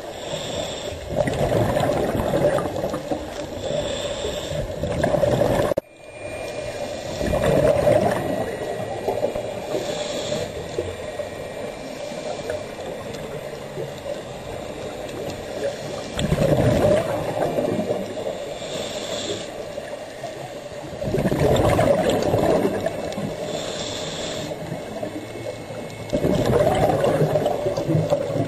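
Scuba diver breathing through a regulator underwater: a short hiss of each inhaled breath, then a rumbling rush of exhaled bubbles, repeating every five seconds or so.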